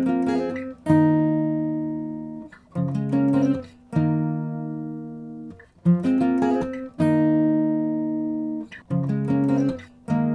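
Background music: acoustic guitar chords strummed and left to ring, each fading over a second or two before the next.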